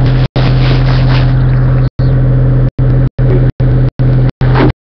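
Off-road rally car's engine idling steadily at a low, even pitch. The sound drops out for a split second again and again, about every half second.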